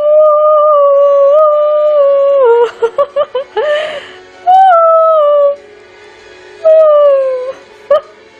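A dog howling: one long held howl, then a run of short broken yelps about three seconds in, then two shorter howls that fall in pitch.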